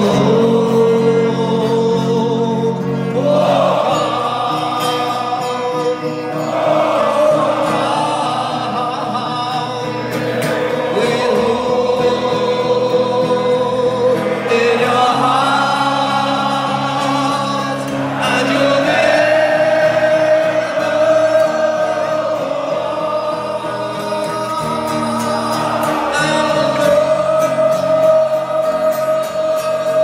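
A huge football crowd singing a chant in unison, in long held phrases a few seconds each, with music underneath.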